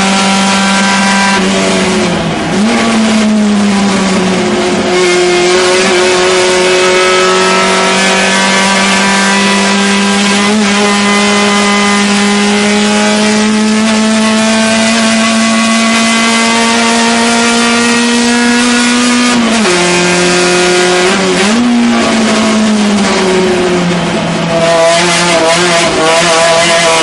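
Fiat 128 race car's 1.1-litre four-cylinder engine heard from inside the cockpit, running hard with its note climbing slowly along the straights. The note drops sharply about two seconds in and again about twenty seconds in, rises briefly, then falls once more before picking up.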